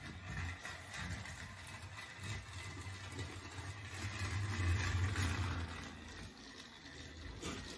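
Motorised TrackMaster Thomas toy engine running along plastic track: a steady whir of its small battery motor and gears, loudest around the middle.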